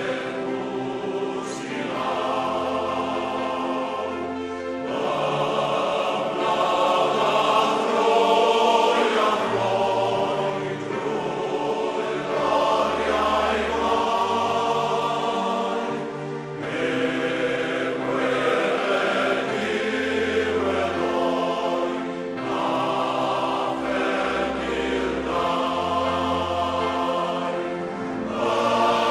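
A choir singing, in held chords that change every second or two, over low sustained bass notes.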